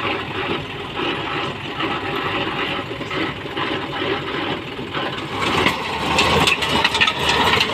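John Deere tractor engine running under load, driving a rotavator whose blades churn through the soil, with a dense mechanical clatter that grows louder after about five seconds.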